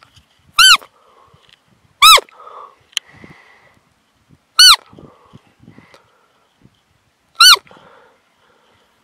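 Roe deer lure call blown four times: short, high, piping squeaks that rise and fall in pitch, imitating a roe doe's fiep to draw in a roebuck. Faint rustling in between.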